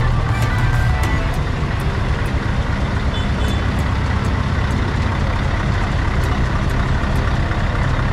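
Diesel truck engine running steadily with a low rumble.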